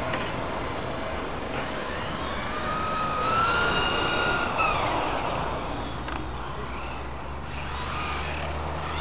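Radio-controlled model car's motor whining, rising in pitch as it speeds up and falling as it slows, loudest between about three and five seconds in, over a steady rushing noise.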